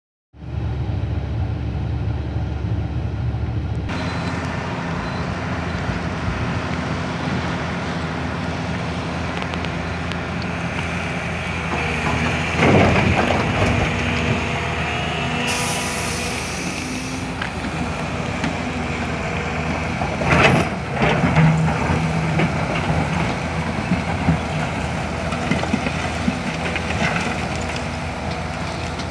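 Heavy diesel engines of a Volvo excavator and a truck running steadily while coal is loaded. The engine note shifts suddenly about four seconds in, louder noisy surges come about twelve and twenty seconds in, and a brief high hiss sounds around sixteen seconds.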